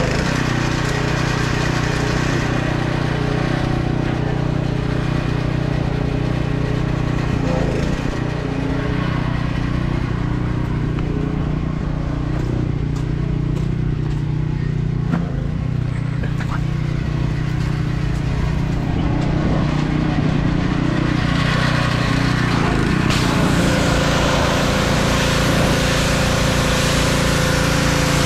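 A pressure washer's engine running steadily. From a little past twenty seconds in, the high-pressure water spray hisses loudly as it hits the truck's grille and chrome bumper.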